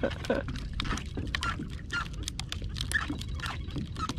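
Small waves lapping and slapping against a plastic sit-on-top kayak hull in short, irregular splashes, over a steady low rumble of wind on the microphone.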